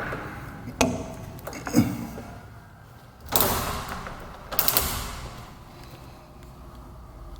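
A door being handled: three sharp clicks and knocks, then two longer sliding or rushing sounds a little under halfway through.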